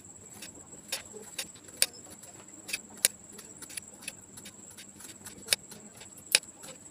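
Knife blade cutting through a peeled raw banana and tapping down on a marble slab: sharp, irregular clicks, about one or two a second. A steady high-pitched whine runs underneath.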